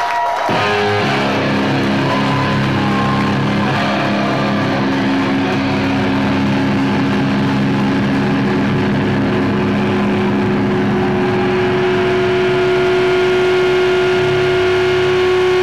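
Hardcore punk band playing live, distorted electric guitars holding a long sustained droning chord that starts about half a second in. One held note grows louder near the end.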